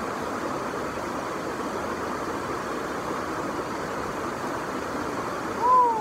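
Steady rushing roar of a nearby waterfall. Near the end, a short high-pitched voice cry that falls in pitch.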